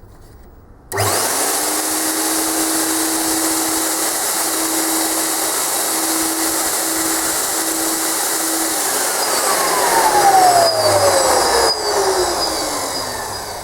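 Twin new Ametek motors in a Premier Clean Monarch 650 ducted vacuum power unit switch on about a second in and run with a loud, steady rush of air and a hum. Near the end they wind down with a falling whine. Both motors are running properly after replacement.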